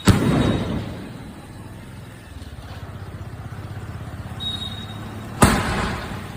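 Two loud bangs about five seconds apart from a 2-inch multi-shot fireworks cake firing its shells, each followed by a rumbling echo that dies away over about a second. A steady low hum runs between the bangs.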